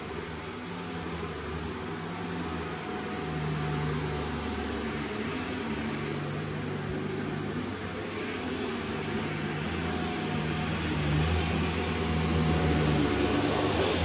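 Shark NZ850UKT corded upright vacuum cleaner running steadily, growing louder near the end.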